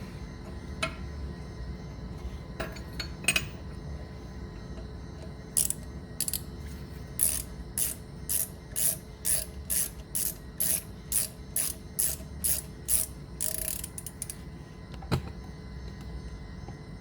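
Hand ratchet wrench worked back and forth in quick strokes, about two clicking strokes a second for around eight seconds, running fasteners in during a brake pad change. A few single clicks come before it, and a sharp knock follows near the end.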